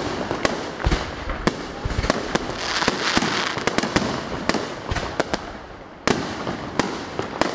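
Aerial fireworks display: a rapid series of shell bursts and bangs, with a denser stretch of noise about three seconds in and a loud bang about six seconds in.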